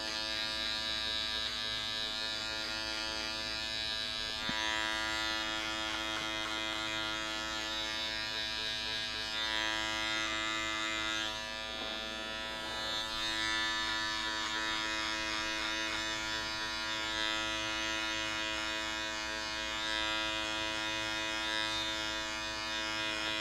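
Electric hair clipper with a No. 3 guard buzzing steadily while cutting short hair, one constant hum with a higher hiss that comes and goes as the blade passes through the hair.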